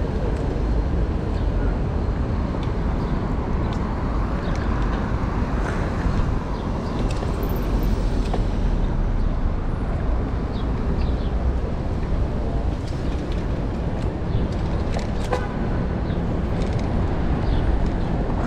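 Steady city street traffic with cars passing, heard from a moving bicycle, with a low wind rumble on the microphone.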